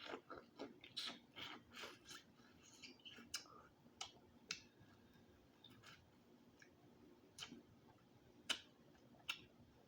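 Faint eating sounds from boiled shrimp: a quick run of small clicks and crackles of shell for the first couple of seconds, then single sharp clicks about a second apart.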